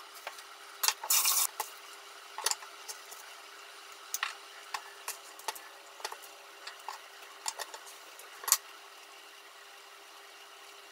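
Light clicks and taps of a knife and a small flower-shaped vegetable cutter on a mango-wood cutting board as carrot slices are cut into flowers, with a short scraping rustle about a second in. The tapping stops about two-thirds of the way through, leaving a faint steady hiss.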